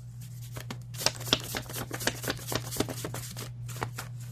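Tarot cards being shuffled: a quick run of papery flicks and taps, starting about half a second in and stopping just before the end, over a steady low hum.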